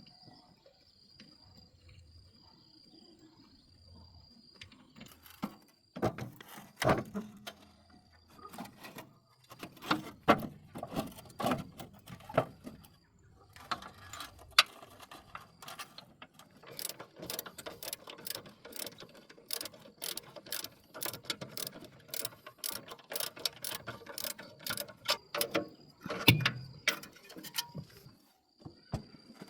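Metal hand tools working on a plough's parts: a few seconds of quiet, then separate metallic knocks and clanks, and after a short pause a long run of rapid clicking and clanking.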